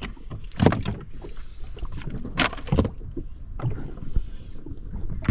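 Water slapping and sloshing around a small boat, with a steady low rumble and several irregular knocks and splashes.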